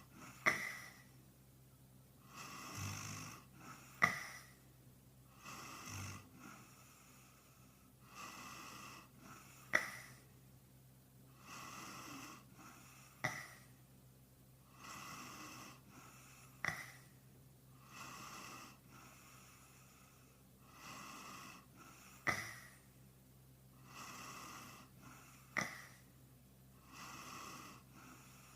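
A sleeping man snoring, sped up and pitched higher: a breathy snore roughly every three seconds, with a sharp snort-like click every few seconds that is the loudest sound.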